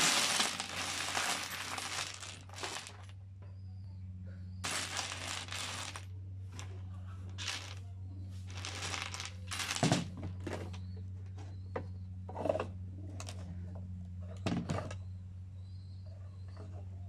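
A pile of loose metal screws, bolts and washers poured out of a plastic container onto a table top: a long, loud metallic clatter in the first few seconds. This is followed by several shorter bursts of rattling as the screws are raked and spread by hand, over a steady low hum.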